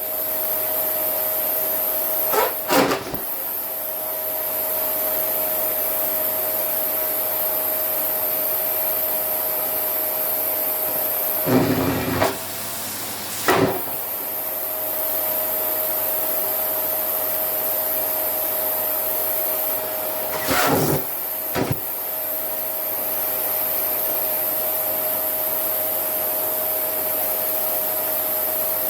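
Vacuum cleaner running with a steady whine while a down jacket is fed to its nozzle. Five short, loud bursts of rustling and sucking come as the fabric is drawn in. Around the middle, the motor's pitch dips briefly as the airflow is choked.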